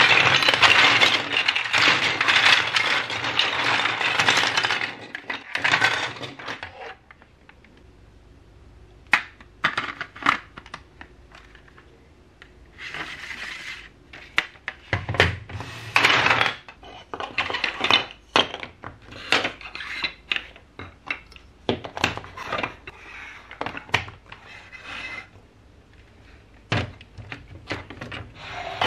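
Hard plastic building blocks and marble-run pieces clattering as hands rummage through a pile, a dense rattle for about the first six seconds. After that come scattered clicks and knocks as single pieces are picked up and pressed together.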